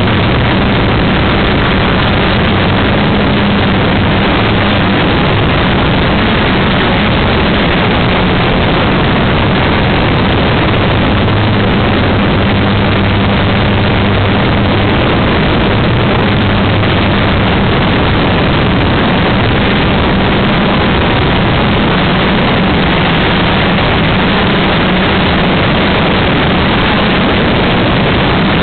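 Motor and propeller noise of a radio-controlled model aircraft, picked up by its own onboard camera in flight: a loud, steady rushing with a low hum that wavers slightly in pitch.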